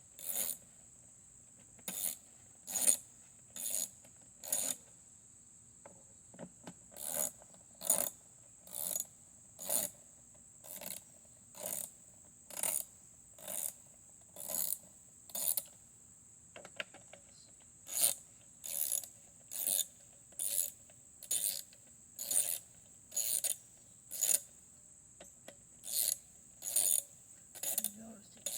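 Hand ratchet wrench clicking in short strokes, roughly one a second, with two brief pauses, as bolts are backed out during disassembly of a lawn mower.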